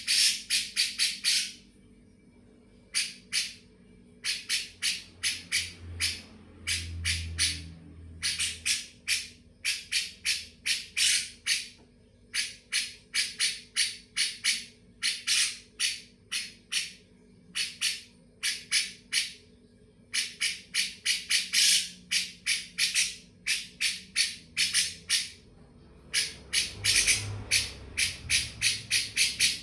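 Harsh bird calls in fast runs of repeated notes, several a second, with short pauses between runs: cucak jenggot (bulbul) calls of the kind played as a masteran recording to tutor white-rumped shamas.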